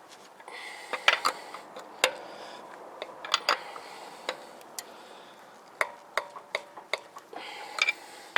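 Lug wrench working on a car wheel's lug nuts as they are tightened: irregular metallic clicks and clinks with some scraping, a dozen or so over several seconds.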